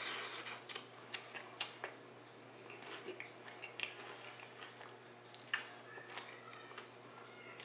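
Someone chewing and crunching a mouthful of nacho tortilla chips, with irregular crisp crunches.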